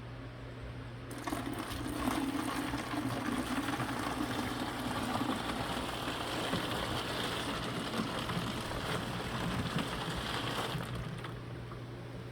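A sudden rush of running water, lasting about nine seconds before it tails off, over a low steady hum.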